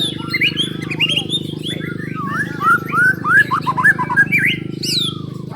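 White-rumped shama (murai batu) song in a bird-song contest: a rapid run of loud, varied whistles, slurs and sweeping notes, over a steady low background hum.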